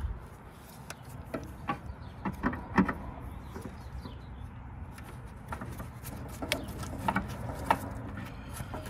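Scattered small clicks and knocks of a new headlight bulb being handled and worked into the back of a Mercedes W124 headlight housing.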